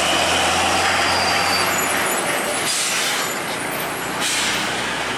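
Diesel tractor truck hauling an ISO tank container on a semitrailer passing close by and pulling away, its engine note fading under tyre and road noise. There is a louder rush of hissing noise about three to four seconds in.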